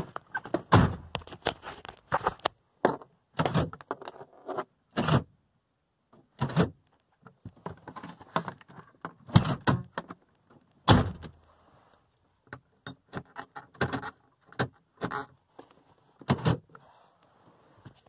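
Volvo 740 driver's door lock and electric central-locking clicking and thunking again and again as the lock is worked by hand. The sound is an irregular run of sharp clicks and knocks, with a few louder thunks among them.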